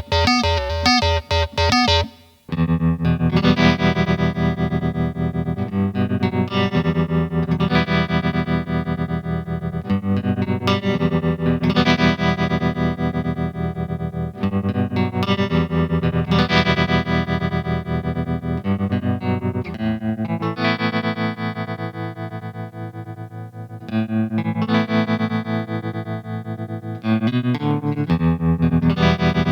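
Instrument played through a Behringer BM-12 ring modulator, giving metallic, clanging tones. It opens with quick even pulsing, which stops about two seconds in; after that come held notes with dense ringing overtones, changing every couple of seconds.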